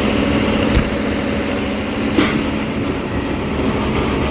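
A tractor running a PTO-driven grain bagger, with a steady mechanical rumble and rattle. Two short knocks come about a second in and about two seconds in.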